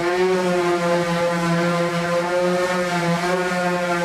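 Benchtop power sander running with a steady pitched hum while a wooden drum hoop is sanded against it.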